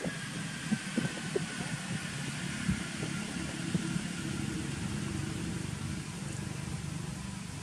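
A steady low mechanical hum, as of a motor running in the distance, with a faint high whine that slowly falls in pitch and scattered soft clicks throughout.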